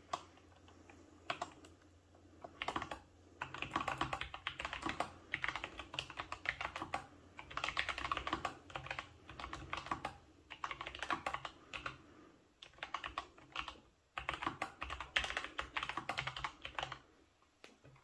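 Typing on the flush, low-profile keys of a Freewrite Alpha digital typewriter: runs of quick, light key clicks in several bursts with short pauses, starting a couple of seconds in and stopping near the end.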